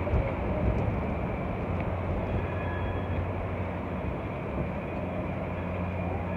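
Street traffic passing close by, cars and SUVs giving a steady rumble, mixed with the hum of a two-car Siemens light-rail train at the stop.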